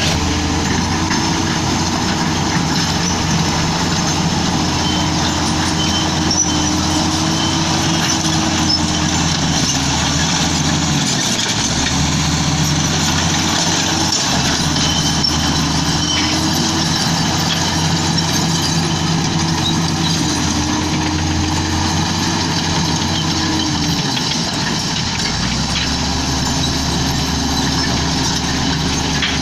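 Komatsu D85E-SS crawler bulldozer's diesel engine running steadily and loudly at work, its pitch changing several times as the revs rise and fall, with a dip about a second before the engine picks up again near the end.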